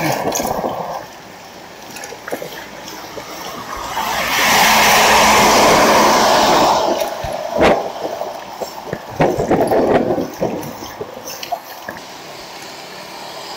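Wind and road rush picked up by a handlebar-mounted camera on a moving bicycle, swelling to a loud rush for about three seconds in the middle. A few sharp knocks follow.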